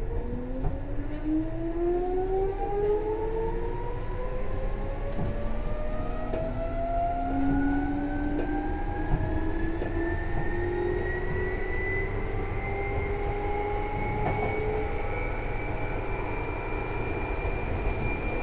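Seibu 2000 series electric train accelerating, heard on board: the armature-chopper traction motors' whine climbs steadily in pitch as speed builds, over steady rail rumble. The climb is quick at first and levels off towards the end.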